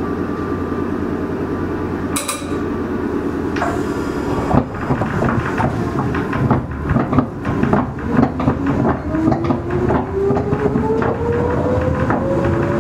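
Meitetsu 6000 series electric train running, heard inside the car: a steady rumble with a brief sharp clack about two seconds in, then the wheels clattering over rail joints. In the last few seconds the traction motor whine rises steadily in pitch as the train accelerates.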